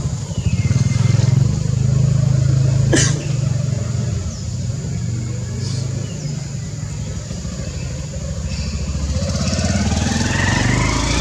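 An engine running steadily with a low rumble, and a sharp click about three seconds in. A rising music sweep builds near the end.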